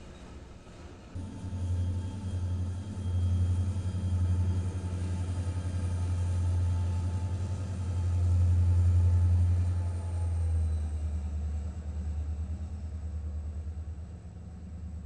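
Norfolk Southern diesel locomotives running as they move past, a deep steady engine rumble with a regular pulse. It starts about a second in, is loudest around nine seconds in, then eases off.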